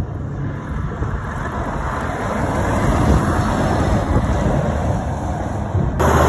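Heavy articulated lorry's diesel engine and tyres as it pulls round close by, growing louder over the middle seconds, with wind on the microphone. Near the end the sound jumps abruptly to a louder, steady lorry engine hum.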